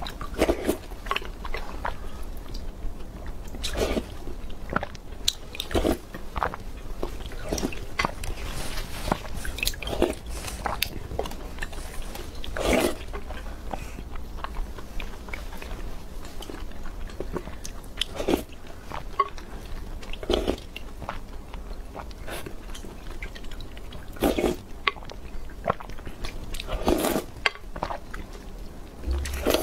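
Close-miked eating sounds: slurping milk tea from a wooden spoon and chewing soft, sticky mouthfuls of tapioca pearls and glutinous rice balls, in short irregular bursts.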